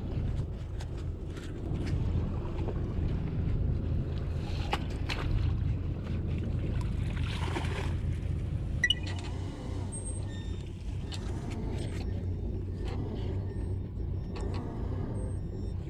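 Fishing boat's engine running steadily, with scattered knocks and clatter of gear on the deck and one sharp clank about nine seconds in.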